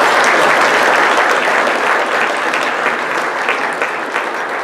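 Audience applauding, loudest at the start and slowly fading.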